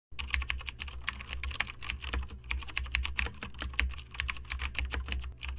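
Computer-keyboard typing sound effect: rapid, irregular key clicks over a low hum, matching a caption typing itself out letter by letter. It cuts off suddenly at the end.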